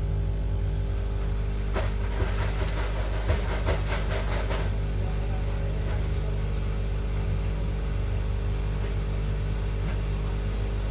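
Hot air rework station blowing with a steady hum and hiss, as used to heat an IC off a phone's circuit board. A run of small clicks and scrapes comes between about two and four and a half seconds in.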